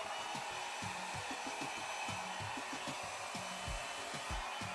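Handheld hair dryer blowing a steady stream of air, used to blow wet poured acrylic paint outward across a canvas.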